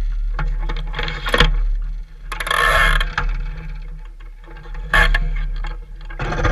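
DN iceboat plate runners rattling and scraping over rough, snow-covered ice under a steady low rumble, with irregular knocks and a longer hissing scrape about two and a half seconds in.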